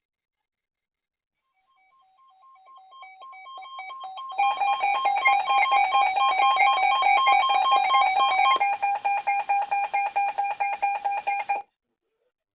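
Weather radio alert alarm for a severe thunderstorm warning: a rapid pulsed beeping in two pitches. It fades up over the first few seconds, turns loud, keeps only the lower pitch after about eight and a half seconds, and cuts off suddenly near the end.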